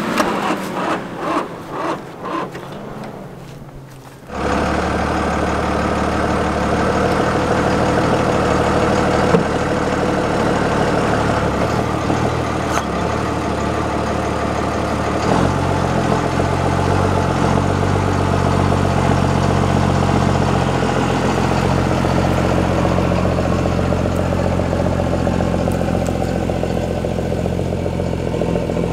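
A vehicle engine running steadily at an even, unchanging pitch, with the low notes of its tone shifting about halfway through. It is preceded by a few seconds of quieter, uneven pulsing sounds.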